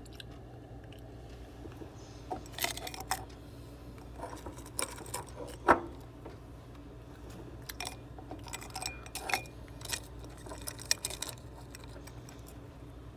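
Fingers digging freezer frost out of a glass jar: scattered crunches, clicks and clinks against the glass, the loudest a sharp knock about six seconds in.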